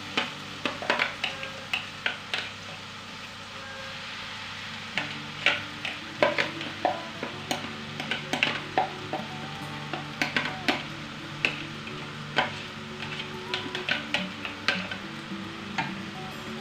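Chopped onion mixture sizzling in a frying pan as it is tipped in from a glass bowl and stirred, with many sharp clicks and scrapes of the spoon and bowl against the pan.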